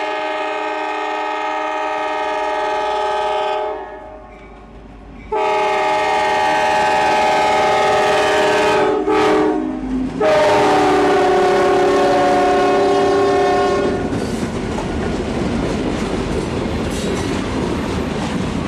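Locomotive air horn on a three-unit consist of old EMD diesels, sounding a long blast, a pause, then another long blast, a brief break and a final long blast, the grade-crossing warning. After the last blast the locomotives pass with a steady rumble and wheel clatter on the rails.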